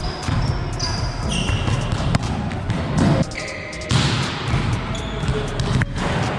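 Volleyball drill sounds in a sports hall: the ball slapping off hands and thudding on the court, with repeated sharp impacts and short high sneaker squeaks on the court floor.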